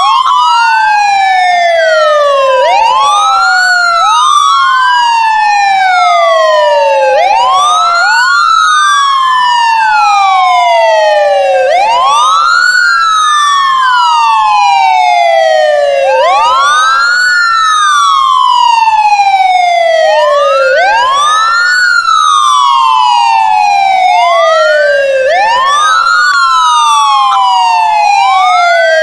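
Ambulance siren wailing loudly. Two overlapping tones each rise quickly and then fall slowly in pitch, and the cycle repeats about every four and a half seconds.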